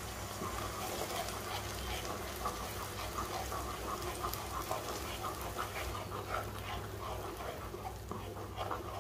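Thick banana paste frying in ghee in a nonstick kadai, stirred and squelched with a wooden spatula: a steady sizzle with many small irregular pops and clicks.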